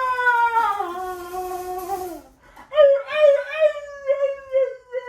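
A dog whining in long, drawn-out cries: one that slides down in pitch and stops a little past two seconds in, then after a short pause another that wavers and slowly falls.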